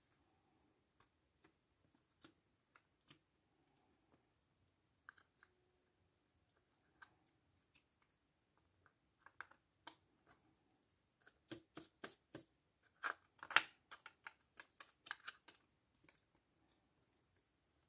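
Small sharp clicks and taps of hands working on a laptop's plastic case and parts, sparse at first, then coming quickly and more loudly for several seconds about two thirds of the way through.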